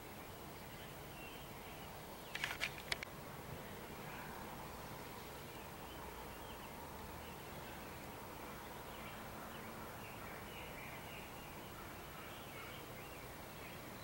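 Faint outdoor background with scattered distant bird chirps. A quick run of four or five sharp clicks comes about two and a half seconds in.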